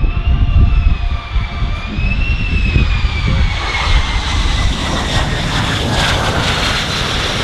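Lockheed Martin F-35A's single F135 turbofan on landing approach and touchdown: a high whine that wavers, then falls steadily in pitch as the jet passes, over a deep rumble. A rushing noise grows louder through the second half.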